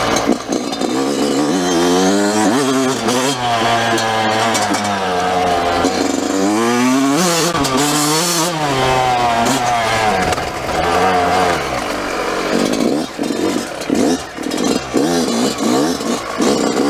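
Yamaha YZ dirt bike engine being ridden hard, revving up and dropping back again and again as the throttle is opened and shut.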